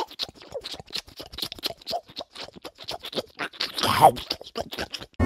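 A cat licking a squeezable lickable treat from a tube held to its mouth: quick, irregular wet lapping clicks, several a second. A brief pitched sound comes about four seconds in.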